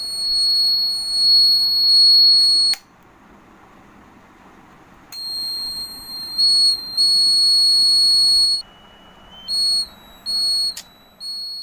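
A repurposed electronic calling-bell unit, used as a water-tank overflow alarm, sounding a steady high-pitched buzzer tone because water has reached its probe and closed the circuit, the tank-full signal. The tone cuts off about three seconds in and comes back about two seconds later. Near the end it breaks into a few short beeps that change pitch.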